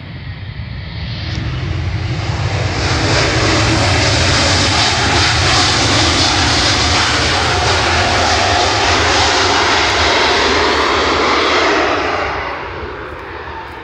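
Twin jet engines of a Spirit Airlines Airbus A320-family airliner at takeoff thrust on the runway. The sound builds over the first few seconds, holds loud and steady, then fades away near the end.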